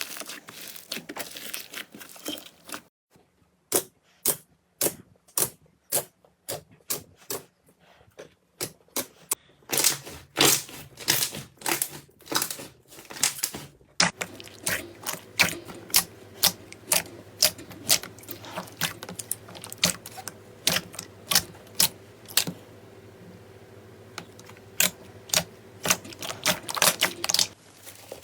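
Slime being pressed and poked by hand, making a run of sharp sticky clicks and pops, two or three a second.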